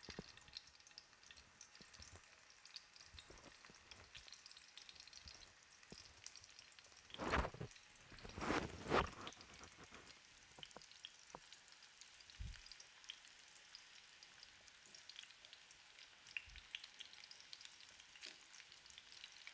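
Flour-dusted fish fillet pieces shallow-frying in a pan of oil, a faint, gentle sizzle of small crackles: the oil is kept not very hot, on low heat. It gets louder for a moment about seven and nine seconds in.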